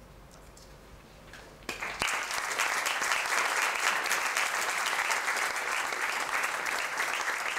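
A short hush, then about two seconds in an audience starts clapping and keeps up steady applause.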